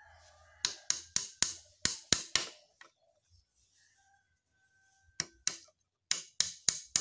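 Small hammer tapping a nail into thin wooden slats of a bird-trap cage frame: a run of about seven quick taps, a pause of a couple of seconds, then another run of taps from about five seconds in.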